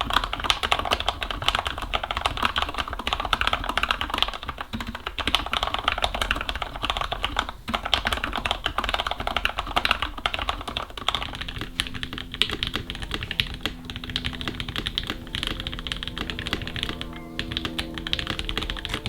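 Continuous fast typing on a keyboard, a dense run of key clacks. From a little past halfway, background music with held tones comes in beneath it.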